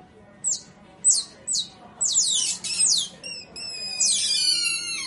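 Several Asian small-clawed otters giving high-pitched squeaking calls that each fall in pitch. The calls come singly at first, then faster and overlapping from about two seconds in, ending in longer falling squeals.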